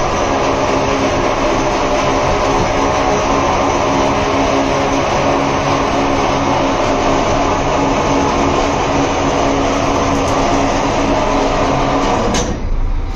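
A fishing trawler's engine running loud and steady, a dense hum with a hiss over it. About twelve seconds in the sound cuts off abruptly, leaving a lower rumble.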